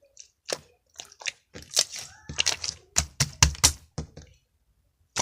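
Slime being squeezed and worked in the hands, giving a dense run of irregular crackling, crunchy pops that stops about four seconds in, then one sharp click near the end.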